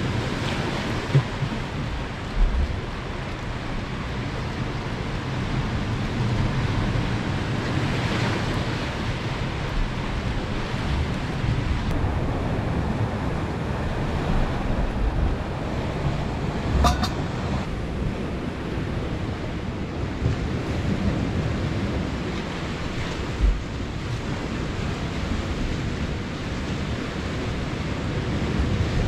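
Steady wind rumbling on the microphone over the wash of sea surf, with a few short knocks, the sharpest a little past halfway.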